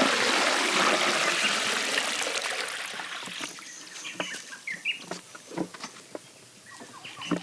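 Water pouring or splashing, loud at first and dying away over about three seconds; birds chirp in the background, with a few light knocks after the water fades.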